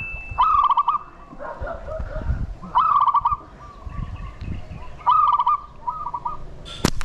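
Green pigeons calling: a short whistled phrase of falling notes, repeated every second or two, over wind rumbling on the microphone. One sharp snap near the end.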